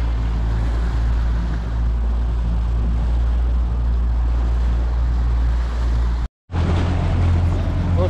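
Outboard motor running steadily at cruising speed with the wash of water along the hull and wake; the sound drops out for an instant about six seconds in, then carries on.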